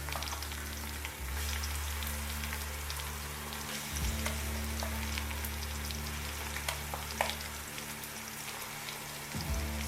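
Shallots and ginger-garlic paste frying in hot oil in a wide pan, sizzling steadily, with occasional clicks of a spoon stirring.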